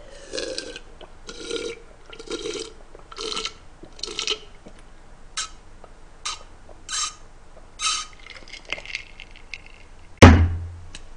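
A person gulping a drink from a glass mason jar, about one swallow a second for some eight seconds. Near the end there is a loud knock as the glass jar is set down on the table.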